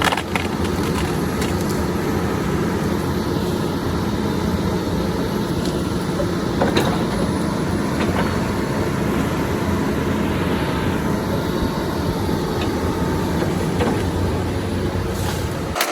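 John Deere excavator's diesel engine running steadily under load, with a few sharp knocks, the loudest about six and a half seconds in.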